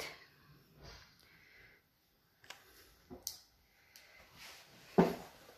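Faint rustling and a few light clicks as a wire fox terrier is handled and shifts about on a rubber grooming mat, with one short louder noise near the end.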